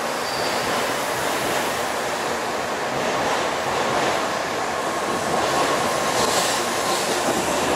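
An N700-series Shinkansen (JR West S set) pulling out of the station and gathering speed past the platform, a continuous rush of wheels and air with a faint whine in it. It grows louder in the last couple of seconds as the rear cars go by.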